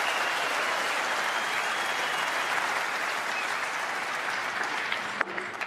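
Large arena crowd applauding a century break at the snooker table, the clapping easing off slightly. Near the end there is a sharp click, a snooker ball being struck by the cue.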